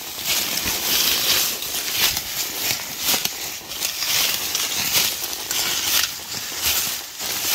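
Footsteps crunching through dry fall leaves and brush at a steady walking pace.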